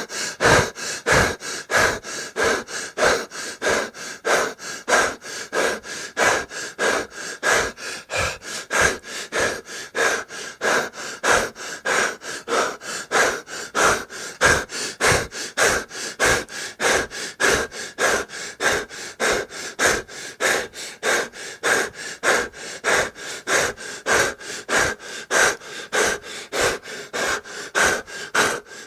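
A person breathing fast and hard, rapid in-and-out breaths at an even rhythm of about three strokes a second, kept up without a break.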